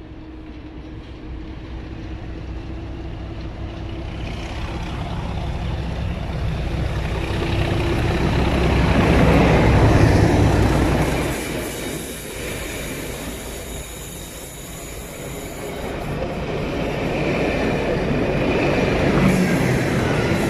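A Class 37 diesel locomotive, with its English Electric V12 engine running, approaches and passes close by. It is loudest about halfway through, then the rumble of the train rolling past follows. The sound swells again near the end as the rear of the train passes.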